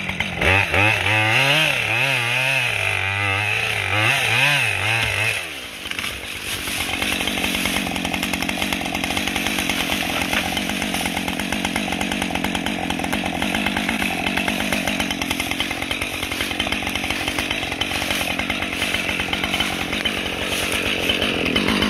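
Two-stroke chainsaw running, its engine pitch wavering up and down for about the first five seconds, then holding steady for the rest.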